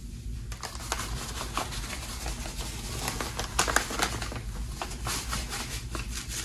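Ajax powdered cleanser and Tide powdered laundry detergent sprinkled onto thick soap foam, making a dense run of small irregular crackles and ticks that is busiest about halfway through.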